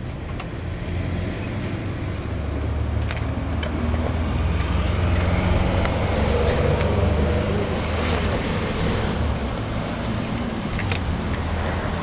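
Sport motorcycle under way: a steady low engine note with wind and road noise on top, building up over the first few seconds and then holding steady.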